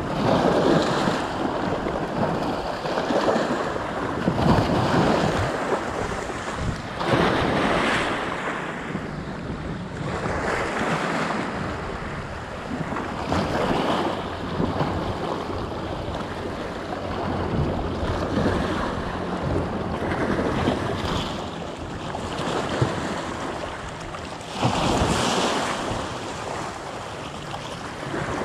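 Sea waves breaking and washing over shoreline rocks, surging every few seconds, with wind buffeting the microphone.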